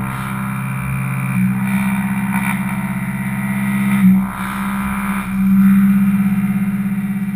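CNC milling machine cutting metal with an Iscar end mill on a high-speed dynamic milling toolpath: a steady pitched cutting hum that swells and dips as the tool works through its passes, loudest a little past the middle.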